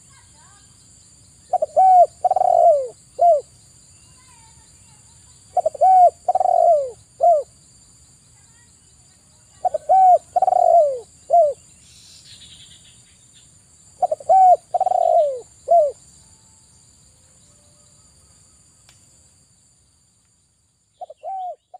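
Spotted dove (tekukur) cooing. It gives phrases of four or five short, falling coos, repeating about every four seconds.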